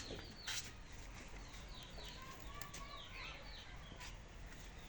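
Birds chirping: many short, falling chirps repeated throughout, faint, with a sharp click about half a second in.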